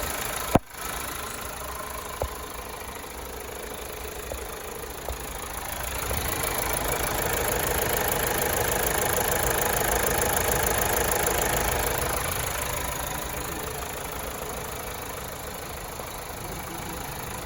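2015 Mazda CX-5 engine idling with the air conditioning running, a steady engine-bay hum that grows louder for several seconds in the middle. A sharp click about half a second in.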